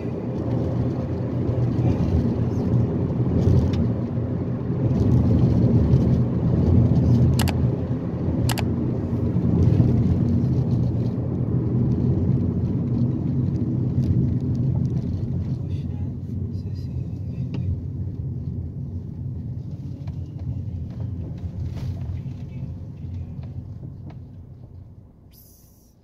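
Cabin noise of a car driving: a steady low rumble of engine and tyres on the road. It gradually quietens as the car slows to a stop, and dies away near the end.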